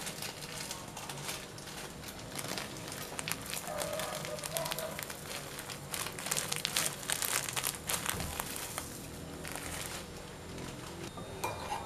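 Plastic bag crinkling as chili flakes are shaken out of it onto sauce in a bowl, with many small crackles, thickest in the middle.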